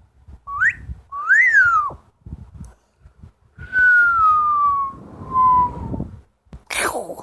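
Double yellow-headed amazon parrot whistling: a short rising whistle, a whistle that rises and then falls, and two long, slowly falling whistles, followed near the end by a short harsh squawk.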